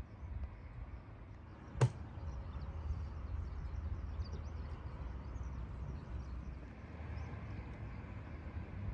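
Outdoor ambience: a steady low rumble with faint high chirping, and one sharp click about two seconds in.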